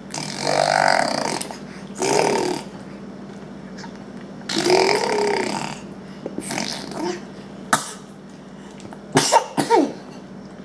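A young child making raspy, burp-like noises from the throat: three drawn-out gurgling sounds, then a few short sharp squeaks near the end.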